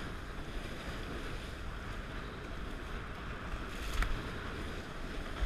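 Water rushing and splashing along the hull of a Dart 18 catamaran under sail, mixed with wind on the microphone: a steady rushing hiss, with a faint tap about four seconds in.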